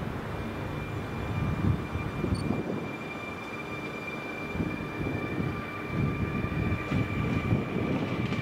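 Electric multiple unit pulling away on its tracks: a rumble of wheels on rail with a steady high whine from the traction equipment. A second, lower whine joins about three seconds in.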